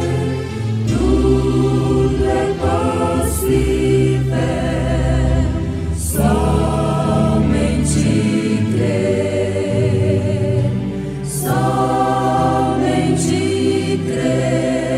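A choir singing a hymn in sustained chords that change every few seconds.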